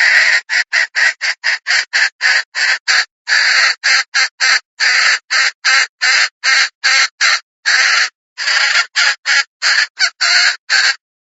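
Female red junglefowl (a decoy hen) giving a long run of short, harsh clucks, about two to three a second, that stops shortly before the end.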